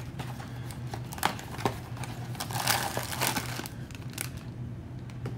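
Cardboard blind box being handled and a shiny black plastic wrapper holding a mini vinyl figure crinkling in the hands, with a few light clicks and taps in the first couple of seconds.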